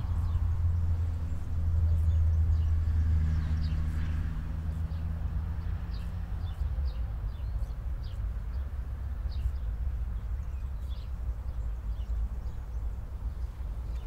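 A vehicle's engine running with a low steady hum, fading away about halfway through, while small birds give short high chirps throughout.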